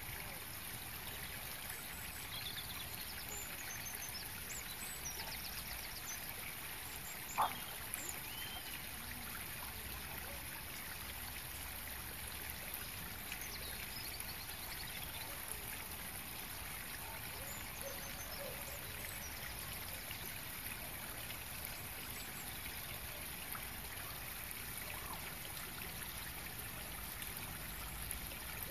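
Quiet outdoor park ambience: a steady hiss with faint high chirps of small birds now and then, and one short, sharp click about seven seconds in.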